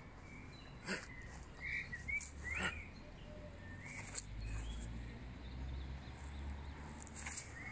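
Outdoor ambience of small birds chirping now and then in short calls, with a few brief sharp sounds and a low rumble in the middle.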